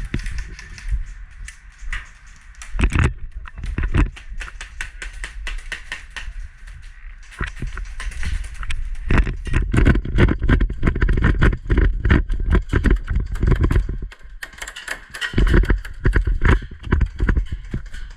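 Irregular footsteps and gear rustling close to the microphone, with low wind rumble, coming quicker and louder from about halfway through, as of a player moving fast across the field.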